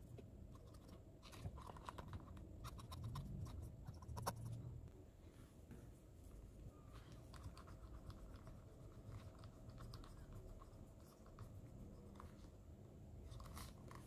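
Faint scratching and small clicks of a swab stick and a microfiber cloth rubbing a brass shoe buckle. The clicks come thickest in the first few seconds, then turn sparse.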